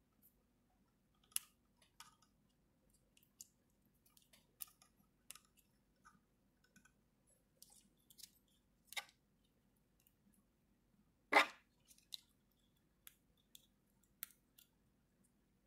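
Scattered light clicks and small knocks of a 3D-printed plastic robot figure's joints and parts being moved by hand, with one louder click about eleven seconds in.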